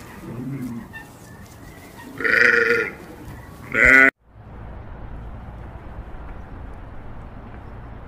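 Sheep bleating: two loud bleats, about two seconds in and again just before four seconds. The sound then cuts off abruptly to a steady low outdoor noise.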